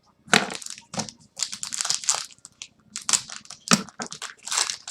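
Crinkling and rustling of a trading-card pack wrapper being handled and opened, in a quick run of irregular crackles.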